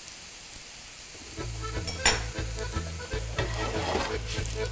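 Cubed potatoes sizzling in oil in a non-stick frying pan as they are stirred and turned with a spatula. There are irregular scrapes against the pan, the sharpest about two seconds in.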